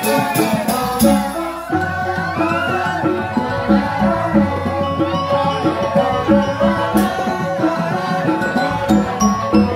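Live Balinese joged gamelan playing: keyed instruments struck in a fast, even rhythm over a kendang drum pattern, with a sliding melody line above.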